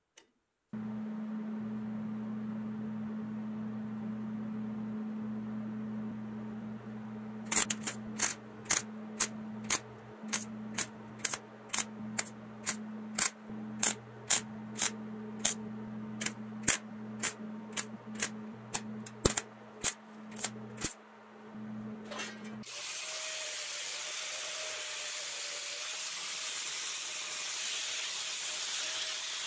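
A steady low machine hum, with a run of sharp taps or clicks at about two a second over its middle. About three-quarters of the way through, the hum stops and a steady hiss takes over.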